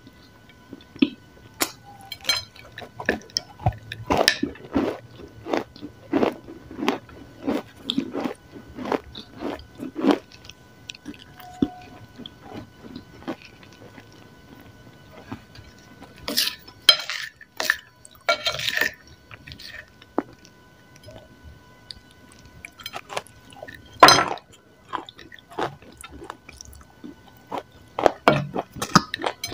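Close-miked biting and chewing of a dry, crumbly grey lump of edible clay. There is steady crunchy chewing for about the first ten seconds, then a few sharp, crisp bites; the loudest comes about two-thirds of the way through.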